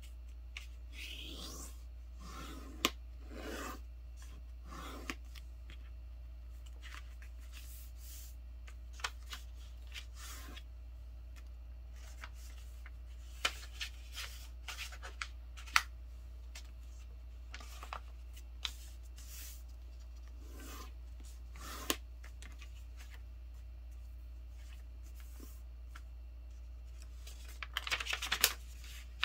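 A sheet of paper being folded by hand on a table: scattered rustles, soft rubbing as creases are smoothed, and sharp crackles of the paper, with a quick flurry of crinkling near the end.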